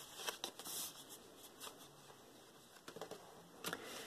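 Printed card faintly rustling as it is handled, with a few soft clicks and taps as it is pressed flat on the tabletop.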